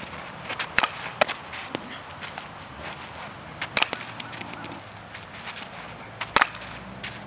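Softball bat striking pitched balls: sharp cracks about two and a half seconds apart, the last the loudest, with two fainter knocks about a second in.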